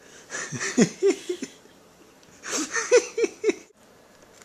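A person laughing in two bursts of quick, short laughs, the second starting about two and a half seconds in.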